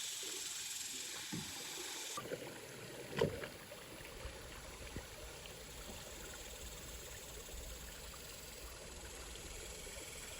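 Faint river water around a kayak, a steady soft hiss, with one short knock about three seconds in.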